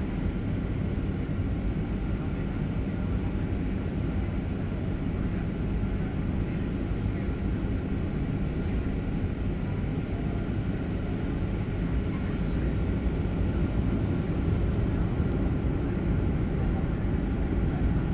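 Steady low rumble of a Boeing 737-700's CFM56 turbofan engines and airflow heard from inside the passenger cabin, getting a little louder about two-thirds of the way through.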